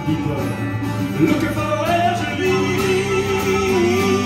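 Live acoustic-rock band playing: strummed acoustic guitars with drums and percussion, and a voice singing one long held note from about halfway through.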